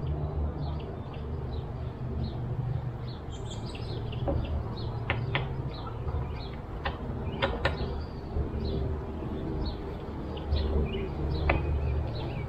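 A few sharp metallic clicks and clinks from a 3/16 Allen key and mirror bolts as the factory side mirrors are unbolted from a side-by-side's mounts. Birds chirp throughout, over a steady low hum.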